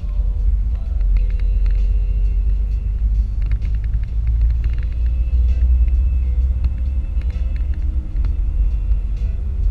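Steady low rumble of road and wind noise inside a car cabin while driving at highway speed.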